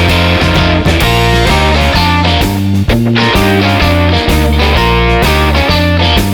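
Loud music led by guitar.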